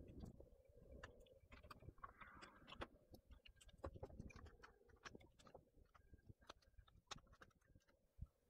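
Faint, irregular clicks and taps of an Acer Nitro laptop's mainboard being set into its bottom case and its ribbon cables handled.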